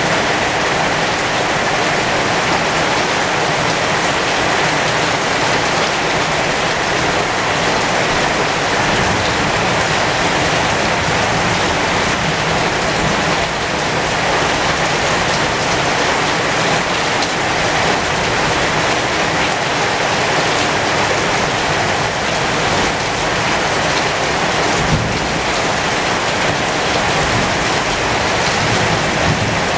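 Heavy rain falling steadily on the leaves of a pomegranate tree: an even, dense patter of drops on foliage.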